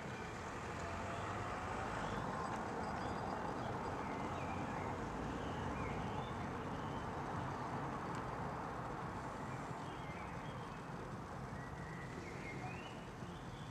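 Outdoor background noise: a steady, even rumble and hiss that swells a little in the middle, with scattered short high chirps throughout.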